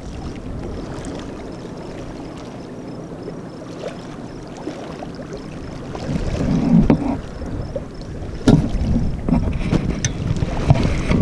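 Wind buffeting the microphone over small waves lapping, a steady low rumble that turns gustier and louder about halfway through, with a few sharp slaps near the end.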